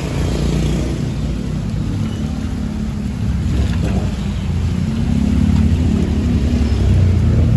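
Angkot minibus engine running with a steady low hum, growing a little louder after about five seconds.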